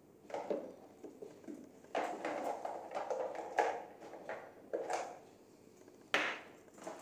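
Handling noise as a fabric shoulder strap is threaded through the rings on a portable air compressor's plastic housing: irregular rustling, scraping and light knocks, with one sharp knock a little after six seconds.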